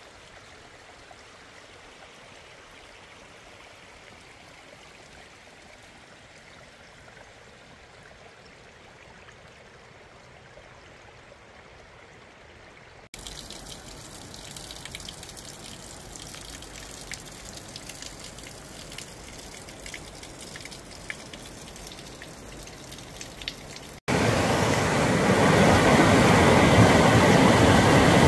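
Rushing water of a mountain creek in a series of short clips. It is faint for about the first 13 seconds, then a little louder with scattered small ticks. About 24 seconds in it cuts to a loud, steady rush.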